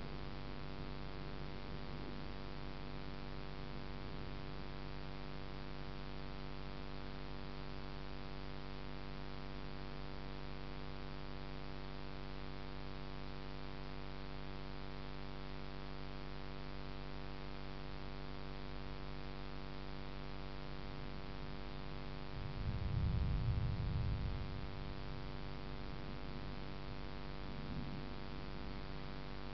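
A steady hum with many even overtones, and about two-thirds of the way through a low rumble of distant thunder lasting about two seconds.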